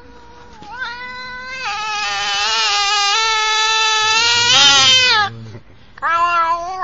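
Domestic cat yowling: one long, drawn-out yowl of about five seconds that grows louder and drops in pitch at its end, then a second, shorter yowl about six seconds in.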